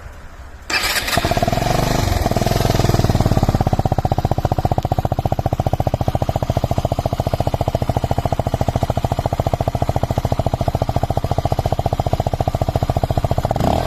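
Online Bestia 125 motorcycle engine starting up just under a second in, rising briefly in pitch, then settling into a steady idle with an even pulsing beat.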